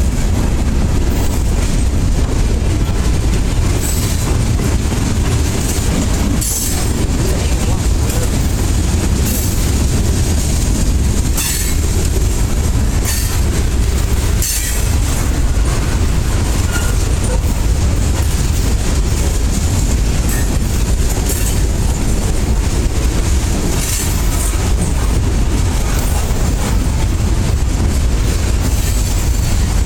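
Freight cars of a Norfolk Southern freight train rolling past: a steady heavy rumble of steel wheels on rail, with irregular clicks and clacks from the wheels over the rail joints.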